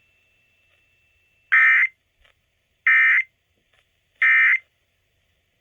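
Emergency Alert System end-of-message tones: three short bursts of buzzing SAME digital data, about a second and a half apart, signalling the end of the alert.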